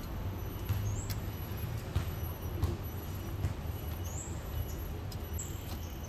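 A few faint clicks as side cutters snip and work the cable ties on an air-conditioner pipe thermistor. Under them runs a steady low engine-like rumble, with a few short high chirps.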